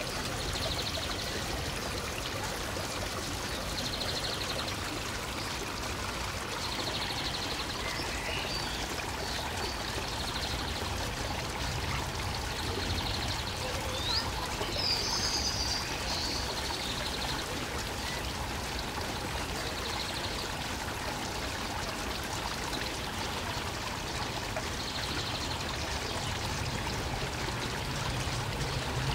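Steady rush of running water, even and unbroken, with a few short high chirps around the middle.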